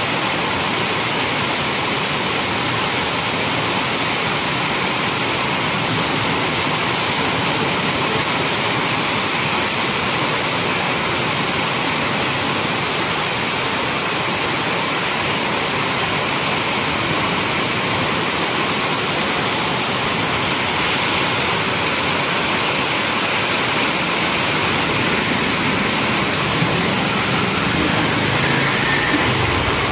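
Heavy rain pouring down on a paved street, walls and roofs: a dense, steady hiss. Near the end a low vehicle engine rumble joins it.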